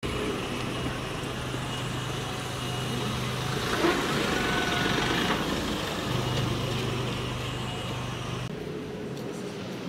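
Street ambience with a motor vehicle engine running nearby: a steady low hum under a haze of traffic noise. About eight and a half seconds in it cuts to a quieter background.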